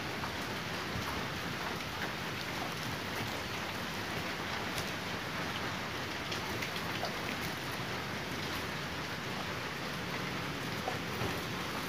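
Steady rain falling, an even hiss with scattered drop taps.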